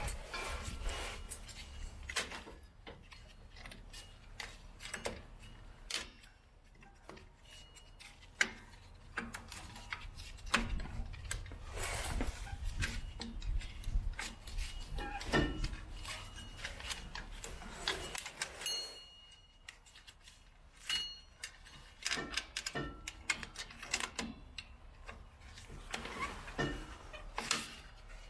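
Scattered metallic clicks, clinks and short scrapes of pliers and drum brake hardware as a parking brake cable end is worked into the rear brake shoe's parking brake lever, over a low steady hum.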